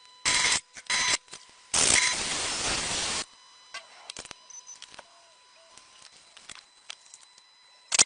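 Pressurised spray hissing in three bursts: two short squirts, then one lasting about a second and a half. Scattered light clicks and taps follow, with a sharp click at the very end.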